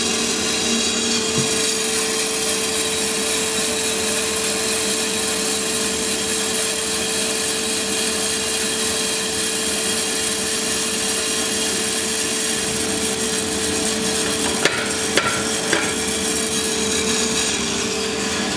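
Freshly charged green coffee beans tumbling in the rotating drum of a Santoker R6 6 kg roaster. They make a steady, dense rattle over a constant hum from the drum and exhaust fan, at the start of the roast. A couple of short knocks come about three-quarters of the way through.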